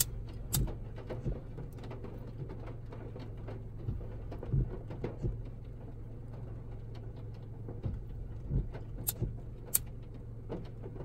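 Steady low hum of a car running, heard from inside the cabin, with scattered light ticks of rain on the car. Near the end a lighter clicks twice as it is flicked and lit.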